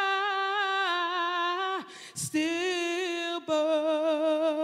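A woman singing solo and unaccompanied, holding long notes with vibrato. A quick breath about two seconds in and a short break about a second later divide the notes.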